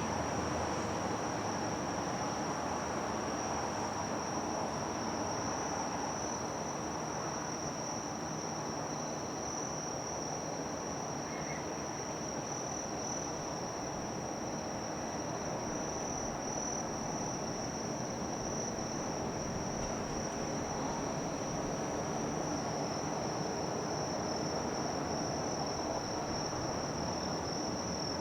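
Insects singing a steady, unbroken high-pitched trill over a constant low background rumble.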